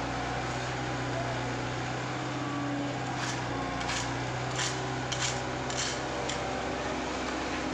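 Tandem asphalt roller's diesel engine running steadily as the machine rolls over fresh asphalt close by, with a handful of short sharp clicks in the middle.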